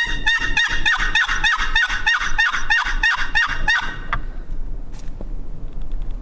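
Turkey yelping: a steady, evenly spaced run of about a dozen yelps, roughly three a second, that stops about four seconds in.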